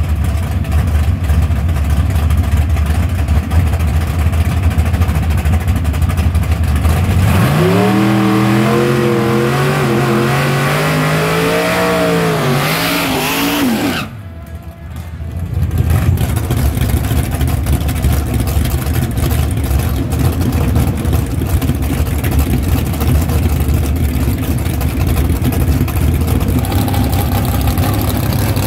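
A first-generation Chevrolet Camaro drag car's engine idling loudly, then revved hard through a burnout about seven seconds in, its pitch climbing and wavering for several seconds over the hiss of the spinning rear tires. The note cuts off abruptly, and the engine goes back to a loud idle.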